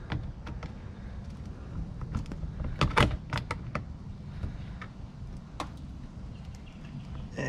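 Scattered clicks and knocks of hand handling as a clip tool is brought to the plastic push clips of a car's undertray, a cluster of them about three seconds in and another sharp one a couple of seconds later, over a low steady hum.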